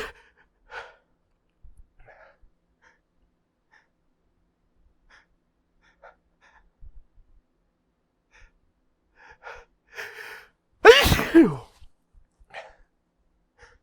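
A man's hitchy sneeze build-up: a few faint catching breaths, then a run of gasping inhales, ending in one loud sneeze about eleven seconds in with the voice dropping in pitch, followed by small breaths.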